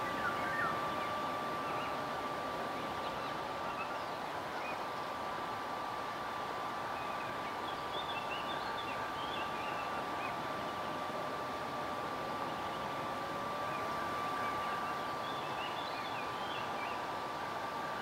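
Woodland ambience built as a soundscape: a steady hiss with a constant high held tone and a lower tone that slowly wavers up and down. Small birds chirp in short clusters midway and again near the end.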